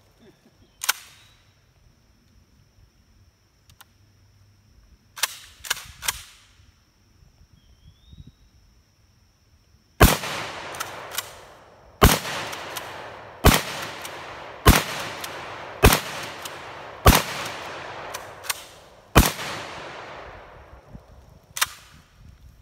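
Kel-Tec KSG 12-gauge pump shotgun with a howitzer muzzle brake firing seven shots at intervals of one to two seconds, starting about ten seconds in. Each shot is a sharp crack with an echoing tail, and quieter clacks fall between the shots. A few lighter clicks come earlier, before the firing starts.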